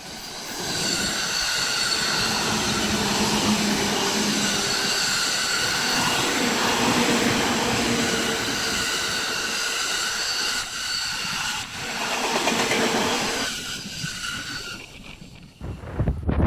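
A train passing close by on the track: it builds up over about a second, runs loud with a steady rumble and several whining tones for about twelve seconds, then fades away. Wind buffets the microphone right at the end.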